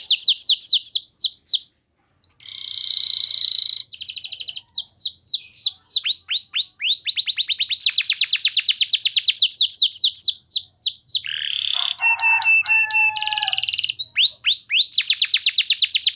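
Domestic canary singing a long song of rapid trills made of fast down-sweeping notes, broken by a short pause about two seconds in. The song also holds a buzzing roll, and later a harsh buzz with a few steady whistled notes.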